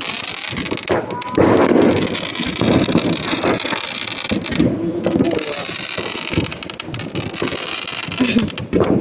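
Wind buffeting the microphone, over a steady background crackle and faint voices.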